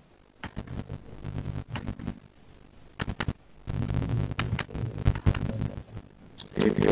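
Choppy, distorted audio from a video call: a low hum comes and goes in short stretches, broken by clicks and brief quieter gaps, with no clear words.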